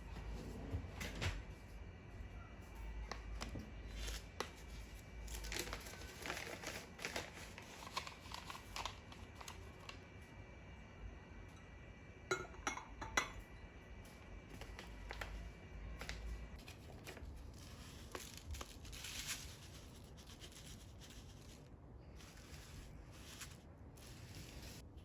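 Quiet kitchen handling sounds: scattered light clicks and knocks of dishes and utensils, with some rustling and crinkling of packaging.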